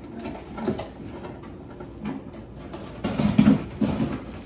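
Hands handling thin plastic-backed sheets and packaging on a cardboard box: scattered light clicks, crinkles and rustles. A brief low hum of a voice comes about three seconds in.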